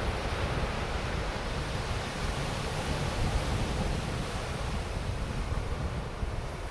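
Ocean surf breaking and washing onto a sandy beach: a steady rushing noise with no pauses. Wind rumbles on the microphone underneath.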